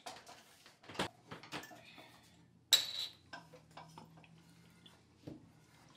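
Glass beer bottle handled on a refrigerator's wire shelf, with light clinks and knocks. About three seconds in comes one sharp pop with a short hiss as the cap comes off, followed by faint handling sounds over a low steady hum.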